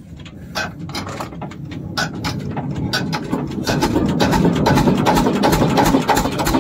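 Boat engine running, with many irregular knocks over its rumble, growing louder over the first few seconds.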